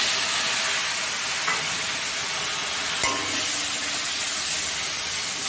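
Ground black-cumin (kalojeere) spice paste frying in hot oil in a kadai, a steady sizzle as a spatula stirs it, with one light knock about three seconds in.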